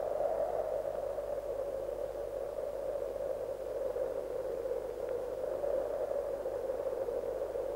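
Steady mid-pitched hiss, the background noise of an old soundtrack, with no sound from the scene itself.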